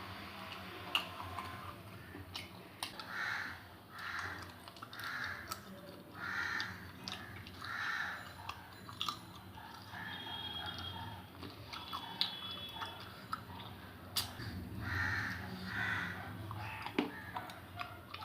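Close-up eating sounds of someone chewing a meal of rice and mutton curry, with small sharp clicks and smacks. A bird calls repeatedly in the background, in runs of short calls about a second apart, with a pause in the middle.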